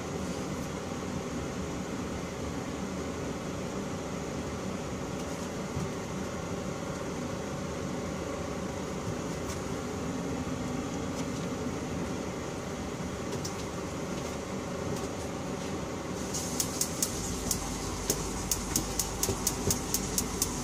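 Propane tankless water heater's burner running with a steady rushing noise. About sixteen seconds in, its battery-powered electronic igniter starts clicking rapidly, about five sparks a second, without relighting the burner; the owner finds it is not feeding fuel.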